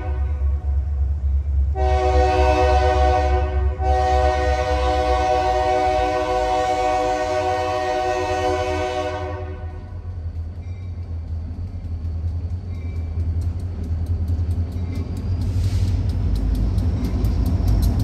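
Air horn of an approaching Lake State Railway diesel locomotive, a GP40M-3, blowing repeatedly: the tail of one blast, a blast of about two seconds, then a long blast of nearly six seconds. The horn stops about ten seconds in, and the low rumble of the locomotives' diesel engines grows as they draw near.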